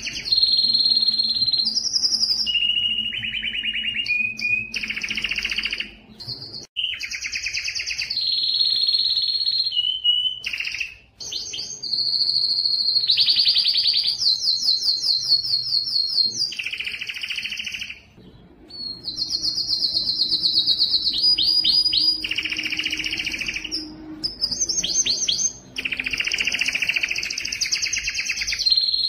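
Male domestic canary singing: long phrases of fast trills, rattling rolls and clear whistled notes, broken by three short pauses. This is the courtship song that draws a female to mate.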